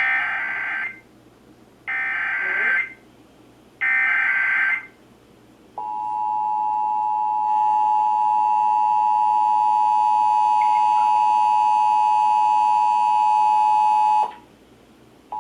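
Emergency Alert System broadcast: three short SAME data header bursts about two seconds apart, then the EAS two-tone attention signal held steadily for about eight seconds before it cuts off abruptly.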